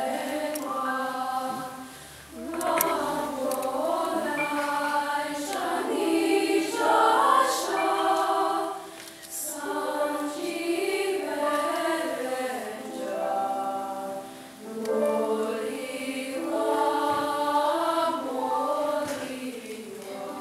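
Women's choir singing held notes in long phrases, with brief dips in loudness between phrases about three times.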